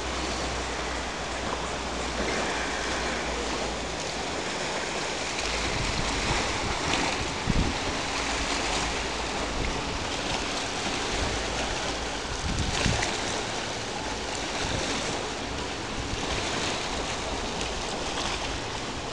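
Wind hissing steadily over the microphone, with a couple of heavier low gusts buffeting it, over sea water washing against the rocks at the foot of the cliffs.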